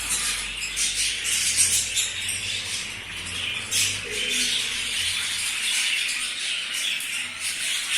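Many budgerigars chattering together: a steady dense mix of high chirps and warbles from a flock.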